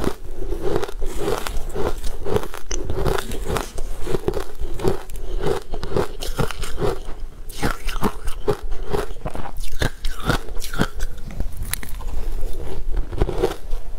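Crushed ice being bitten and chewed close to the microphone: a continuous run of crisp, irregular crunches.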